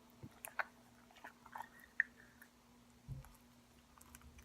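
Slime made from contact solution and baking soda being stirred: faint, sticky clicks and squelches, with a short sharp squeak about two seconds in and a low thump about a second later.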